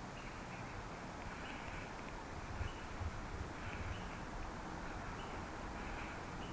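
Steady outdoor background noise with a low rumble, faint short chirps now and then, and a couple of soft low thumps a little over two and a half seconds in.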